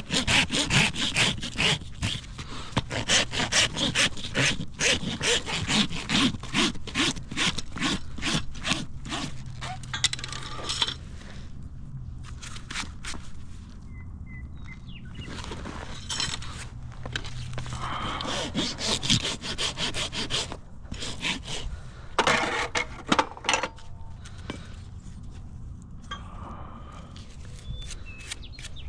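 Farrier's hoof rasp scraping back and forth across a horse's hoof in quick repeated strokes, dressing the trimmed hoof down a little shorter. The strokes run close together for about the first ten seconds, then come in shorter bouts with pauses between.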